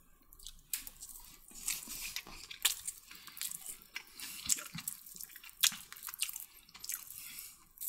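A person chewing a mouthful of chicken kottu close to the microphone: irregular wet clicks and smacks of the mouth.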